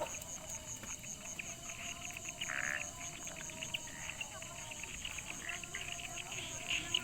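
Night insects chirping: one keeps up a steady high pulse about three times a second, with other chirps and trills around it.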